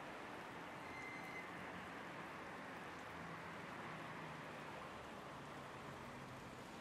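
Steady hiss of light rain falling on a wet street, with a faint low hum of distant traffic under it.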